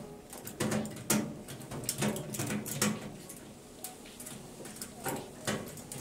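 Irregular clicks and light knocks of a screwdriver and screws as the Phillips screws holding a microwave oven's outer cover are taken out. The clicks come thickest in the first three seconds and thin out after.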